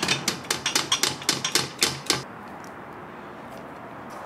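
Hand crank of an EZ Green bow press with a compound bow in it being turned quickly: a rapid, even run of clicks, about five a second, that stops about two seconds in. Low room tone follows.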